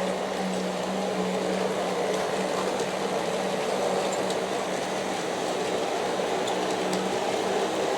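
G-scale model coal train running on its track: a steady rolling rumble of the wheels, with a steady motor hum from the Aristo-Craft locomotives that stops about a second before the end.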